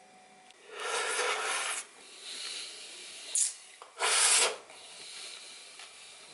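Rasping, rubbing noise in three bursts, the last the loudest, over a faint background.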